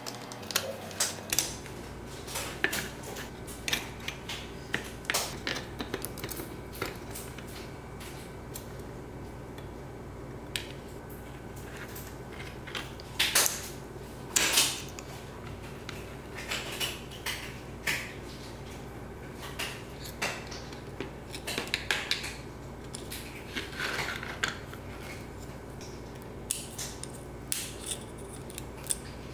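Die-cast model car parts clicking, scraping and lightly knocking as they are pried apart by hand with a thin metal tool. The clicks come irregularly, the loudest about 13 and 14.5 seconds in, over a faint steady hum.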